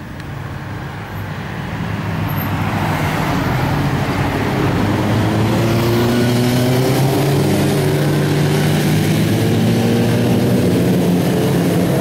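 Road traffic passing close by: cars and then a group of motorcycles, their engines getting louder over the first few seconds and then running loud and steady, with several engine pitches sliding slightly as they go by.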